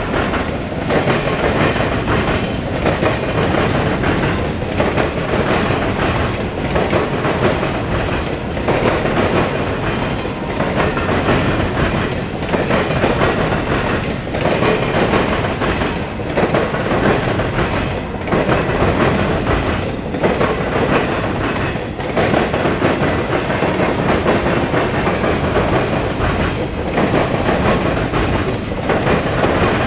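A mixed freight train's boxcars rolling past close by. The steel wheels rumble steadily on the rails, with a regular beat about every two seconds as each car goes by.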